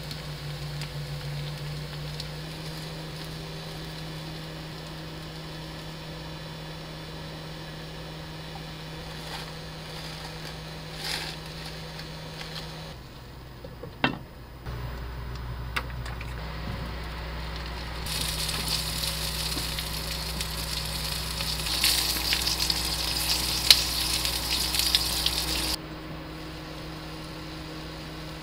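Kimchi fried rice sizzling in a frying pan, with a steady low hum underneath. About halfway through, a sharp clink as a glass lid is set on the pan; later the sizzling turns louder and crackly, then cuts off suddenly.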